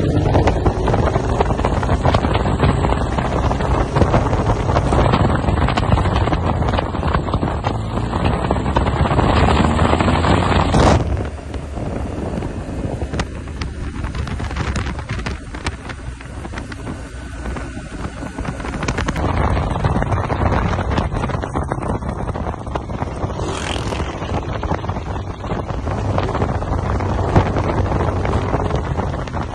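Motorcycle engine running under way, its pitch rising as it accelerates in the first couple of seconds, with wind rushing over the microphone. The sound changes abruptly about a third of the way in and again a little past halfway, as the engine and wind mix shifts.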